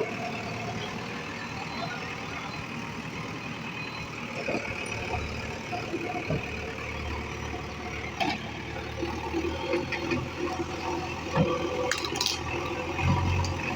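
Diesel machinery running steadily, a backhoe loader and tractors at work, with a few sharp knocks. The low engine sound swells near the end.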